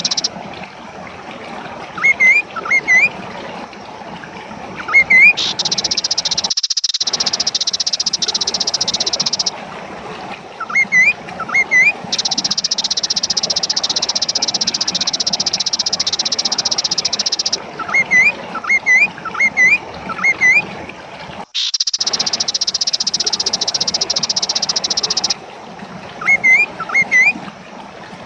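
Kaso-kaso bird calling: short hooked, rising notes in quick pairs and threes, repeated every few seconds, used as a lure call. Behind the calls a steady high buzz comes and goes in stretches of about four to five seconds, with abrupt starts and stops.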